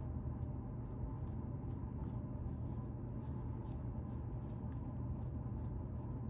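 Dandruff being scratched out of a beard: a string of quick, dry, scratchy strokes over a low steady hum.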